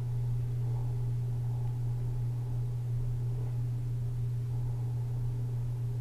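A steady low hum with nothing else over it: background room noise.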